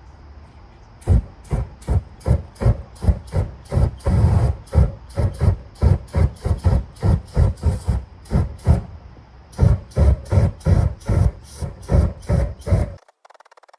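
Welder laying a quick series of short stitch welds on a differential's spider gears to lock the diff, about two to three crackling bursts a second, stopping suddenly near the end.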